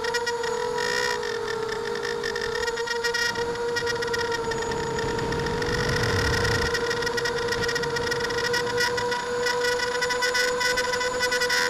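ImmersionRC Vortex FPV racing quadcopter's brushless motors and propellers whining in cruise, heard through the Mobius camera mounted on the quad along with wind and vibration hiss. The pitch holds fairly steady, sagging slightly about a second in.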